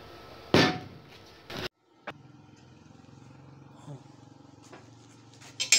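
Steel parts of a bandsaw-mill blade tensioner clanking as they are handled, with one loud clank about half a second in. After a short break there is a low steady hum with a couple of faint knocks, and another sharp metal clank near the end.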